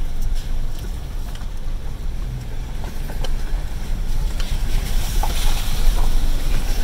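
Vehicle driving slowly over a rough gravel trail, heard from inside the cab: steady low engine and road rumble with scattered knocks and rattles. Tyre noise swells into a louder hiss about five seconds in.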